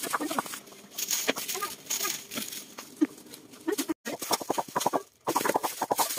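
Plastic-gloved hands kneading and mixing raw marinated meat in a metal pot: wet squelching and plastic crinkling in quick, irregular strokes. The sound cuts out for a moment about four seconds in and goes quiet again about a second later, before the squelching picks up at a faster pace.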